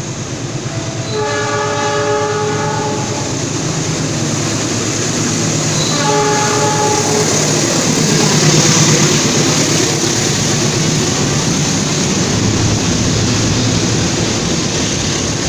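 A diesel locomotive hauling a container freight train passes close by. It sounds two horn blasts, a long one about a second in and a shorter one about six seconds in. The locomotive goes by, loudest about eight seconds in, followed by the steady rumble and clatter of the container wagons on the rails.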